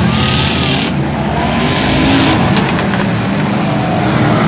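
Several stock race cars running on the track at once, their engines making a loud, steady, mixed drone that swells as cars pass. A few sharp clicks sound about two and a half seconds in.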